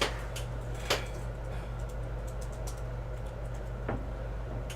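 A few sharp, separate clicks and taps from cards being handled, over a steady low electrical hum.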